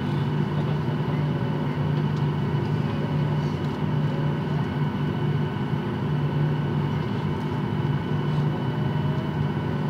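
Steady hum inside a passenger jet's cabin on the ground, a constant low drone with a few thin, steady whining tones above it.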